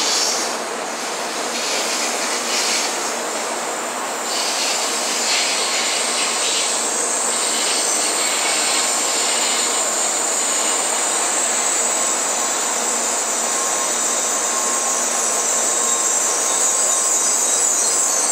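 N700 series shinkansen train rolling slowly into the station platform as it comes in to stop, a steady rushing run with a high-pitched squeal that grows stronger from about halfway through.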